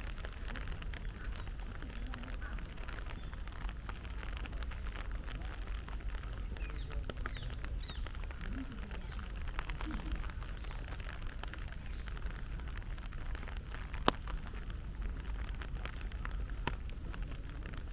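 Heavy rain falling and pattering, a dense steady stream of drop ticks over a low rumble, with one sharper, louder tap about fourteen seconds in.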